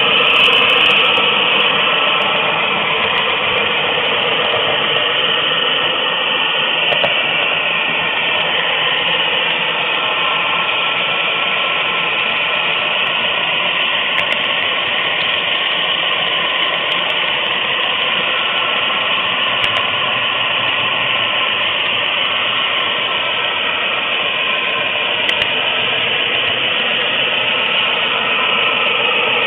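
HO scale model train rolling along the track, a steady mechanical whir of wheels on rails picked up close by a camera riding on a flat car in the train, with a few faint clicks.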